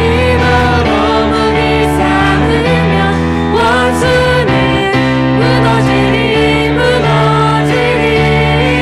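A worship song with singing over instrumental accompaniment: sustained sung melody over steady bass and chords.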